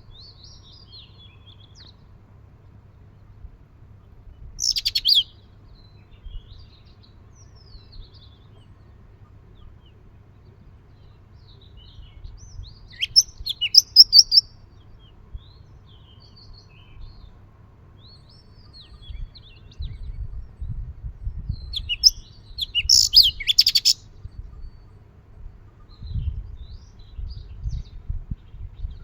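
Sparrows chirping on and off, with three louder bursts of rapid chirps: a few seconds in, near the middle and late on. In the second half, a low rumble comes and goes underneath.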